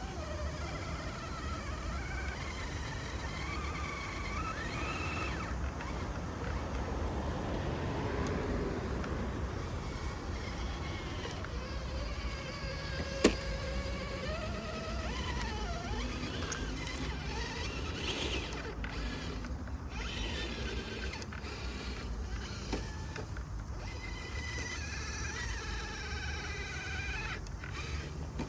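Radio-controlled trail truck's electric motor and gears whining, the pitch rising and falling as the throttle changes. There is a single sharp click about halfway through.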